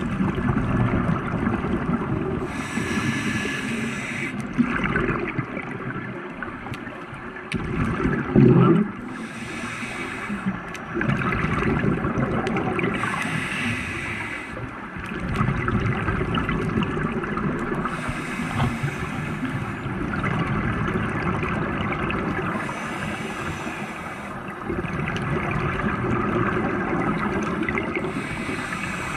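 A scuba diver breathing through a regulator, heard underwater: a bubbling rumble of exhaled bubbles that swells and fades every few seconds.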